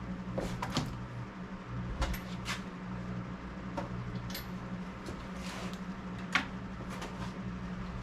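Scattered clinks and knocks of metal parts and tools being handled while a benchtop belt grinder is assembled, the sharpest knock about six seconds in, over a steady low hum.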